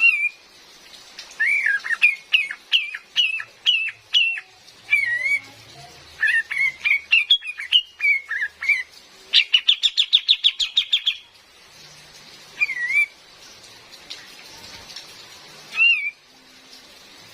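Female kapas tembak songbird calling: a quick series of loud, slurred whistled notes, then a fast even trill about halfway through, and a few single calls near the end, over a faint steady hiss of rain.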